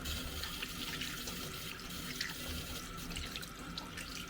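Kitchen tap running steadily into a sink, with water splashing and a few light ticks.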